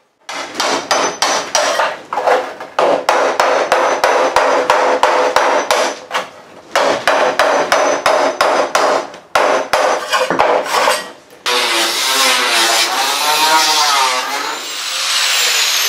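Quick repeated hammer blows on a steel scraper blade, chipping old panel adhesive off a steel car bonnet, metal ringing on metal about three strikes a second with short pauses. About eleven seconds in, an angle grinder takes over, grinding the bare steel panel with a steady noise and a whine that wavers as it bites.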